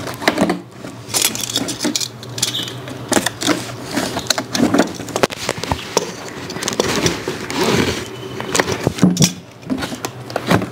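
A cardboard toy box being cut and opened by hand: a metal blade scraping along the packing tape, with irregular rustling, scraping and knocking of the cardboard flaps.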